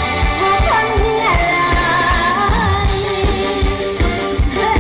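Live mor lam band music amplified over a PA system: a singer's gliding, ornamented melody over a steady drum beat.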